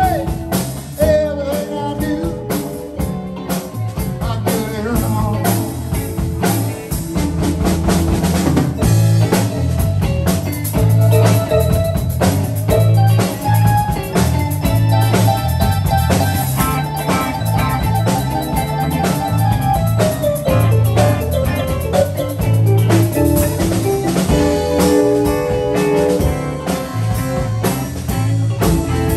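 Live blues band playing an instrumental passage on electric guitars, keyboard and drum kit, with a steady beat.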